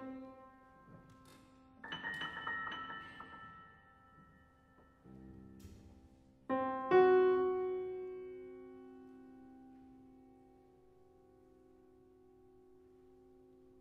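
Grand piano playing sparse contemporary music, the ringing of a loud chord dying away at first. A cluster of high notes sounds about two seconds in, a soft low chord about five seconds in, then two loud struck chords near seven seconds that are held and left to ring and fade slowly.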